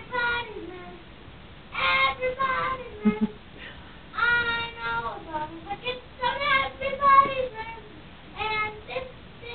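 A young girl singing in short phrases with brief pauses between them, some notes held and some sliding down in pitch.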